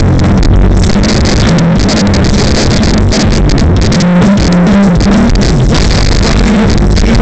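Live band music played loud over a PA and recorded with heavy distortion, with a prominent bass line that moves between notes.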